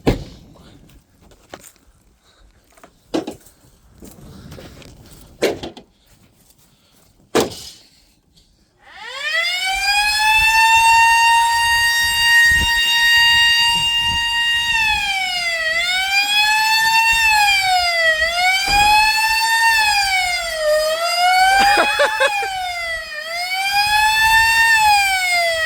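A few scattered knocks, then about nine seconds in an FS&S B9 siren winds up to a steady tone. It holds the tone for several seconds, then from about fifteen seconds in it wails down and up every couple of seconds.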